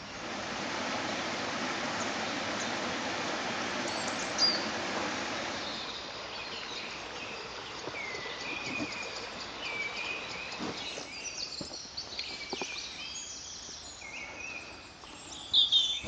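A shallow brook running over stones, a steady rush that fades after about six seconds, followed by small woodland birds chirping with many short, quick calls.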